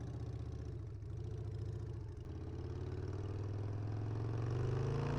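Harley-Davidson Sportster's air-cooled V-twin engine running under way, steady at first, then rising in pitch and loudness over the last few seconds as the motorcycle accelerates.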